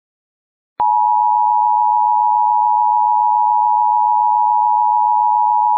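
Emergency Alert System two-tone attention signal: a loud, steady dual tone that starts abruptly about a second in and cuts off sharply near the end. It is the alarm that announces an emergency alert message is about to be read.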